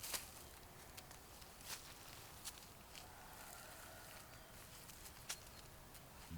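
Near silence: a faint outdoor background with a few scattered sharp clicks or taps.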